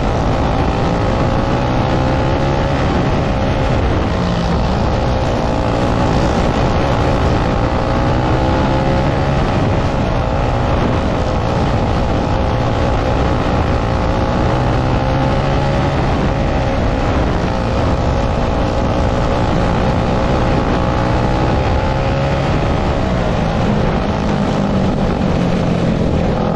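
Winged dirt kart's engine heard from onboard at racing speed, its pitch rising and falling over and over as it lifts for the corners and accelerates down the straights, over the rush of the track.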